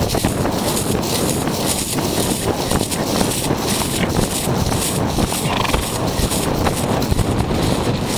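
A horse cantering, its hoofbeats heard close up from the saddle on a field track.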